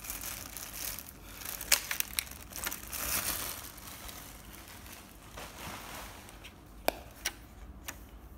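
Plastic wrapping crinkling and rustling as a shuttlecock tube is handled, with several sharp crackles about two seconds in and again near seven seconds.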